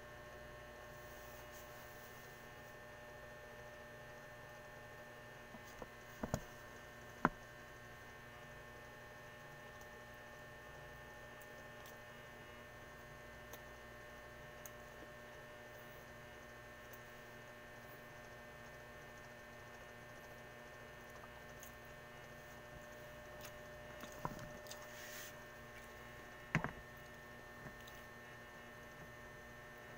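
Steady electrical hum with several steady whining tones underneath, broken by a few short, sharp knocks and clicks: a pair about a quarter of the way in and another pair near the end.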